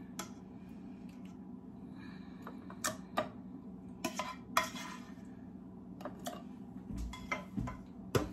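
A utensil clinking and scraping against a container and a glass measuring cup as pumpkin puree is scooped in: a dozen or so separate light clinks and knocks, spread unevenly, over a low steady hum.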